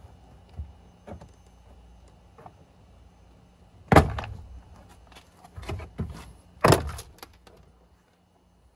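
Plastic retaining clips of a Toyota Tundra's door trim panel popping loose as the panel is pulled away from the door from the bottom: two loud sharp pops about two and a half seconds apart, with a few smaller clicks and knocks around them.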